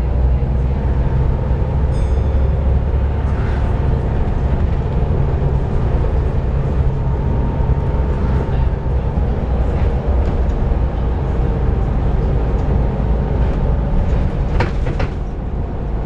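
Volvo B7TL double-decker bus running under way, a steady low engine drone with rattles, and a couple of sharp knocks near the end.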